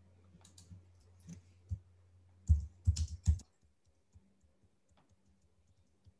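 Scattered clicks and taps at a computer: a few faint ones, then a quick cluster of about four louder clicks about halfway through. A faint, steady low electrical hum runs underneath.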